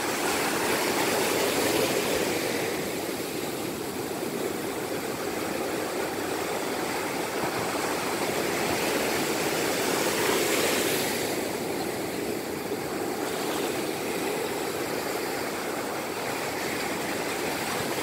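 Ocean surf: waves breaking and washing up the beach as a steady rush, swelling louder near the start and again about ten seconds in.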